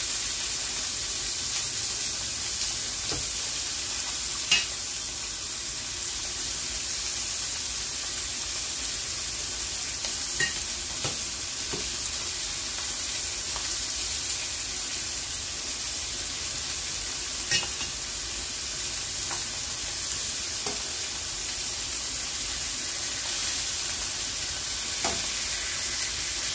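Steady sizzle of pork chops frying in a stainless steel pan, with a few sharp metal clinks of a ladle against a stainless pot as green asparagus is lifted out of the boiling water.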